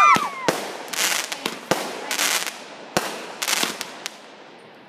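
Aerial fireworks bursting overhead: a string of sharp bangs about every half second with crackling between them, getting fainter toward the end.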